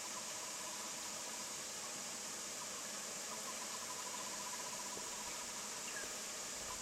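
Steady high-pitched hiss of an insect chorus, with a faint, rapid pulsed call from some animal about three seconds in that lasts a second or two.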